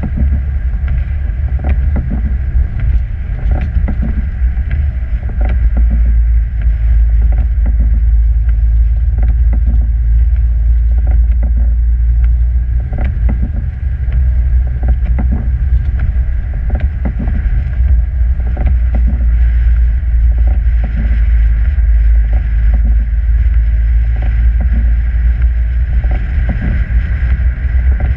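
Vehicle driving on a snow-covered road in a blizzard: a loud, steady low rumble with frequent small knocks and rattles.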